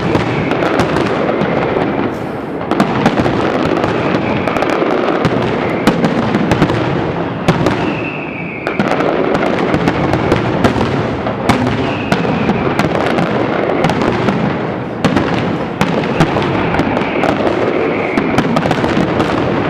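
Fireworks display going off without a break: dense, rapid bangs and crackling, with a whistling tone now and then over the top.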